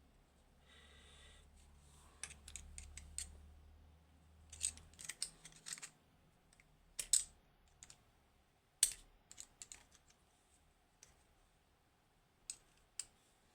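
Small metal tool clicking and scraping against a padlock's cylinder while prying at the E-clip that holds it, in irregular clusters of sharp clicks, the sharpest two about seven and nine seconds in; the clip does not come off yet.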